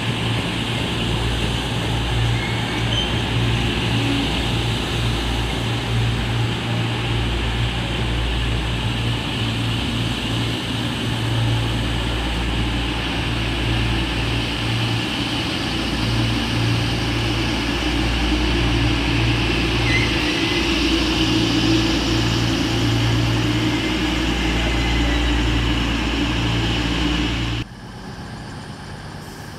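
Diesel engines of an Avanti West Coast multiple-unit train running with a steady low hum as the train moves slowly past. The sound cuts off sharply near the end to a quieter background.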